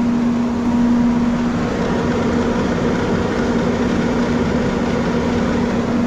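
Sawmill machinery running steadily with a low hum, which fades out about a second and a half in.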